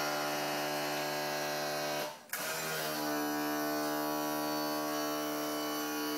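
Power trim and tilt motor of a 70 hp Evinrude outboard running with a steady electric buzz, tilting the engine. It stops about two seconds in and starts again a moment later.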